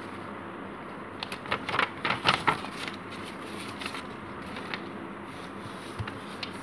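A sheet of white paper being folded and creased by hand: a burst of rustling and crinkling about a second in, then a few softer crinkles and a light thump on the table near the end as the fold is pressed flat.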